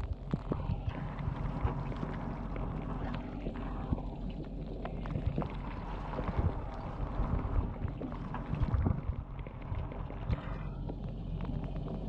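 Inside a running dishwasher during its wash cycle: water spraying and splashing against the dishes and racks over the steady hum of the pump motor, with frequent small knocks and spatters.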